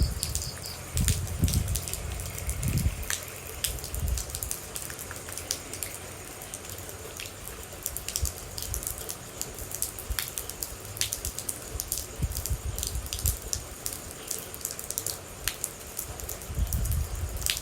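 Rain with water drops dripping irregularly onto a surface: many crisp single drip clicks over a steady patter, with dull low thuds grouped near the start and near the end.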